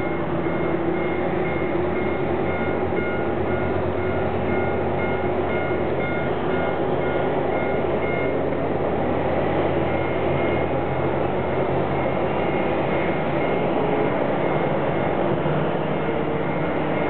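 Steady jet whine and rumble from a Boeing 737-800 being towed on the taxiway, with a faint beeping that repeats about twice a second.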